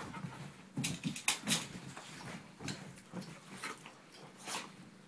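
Two dogs play-fighting, mouth to mouth: irregular short scuffling and snapping noises, loudest in a cluster about a second in.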